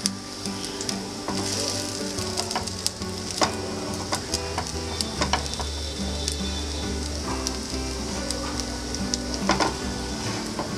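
Soya kababs shallow-frying in oil in a nonstick pan, sizzling steadily with scattered crackles. A silicone spatula scrapes and nudges the patties now and then, giving a few sharper clicks.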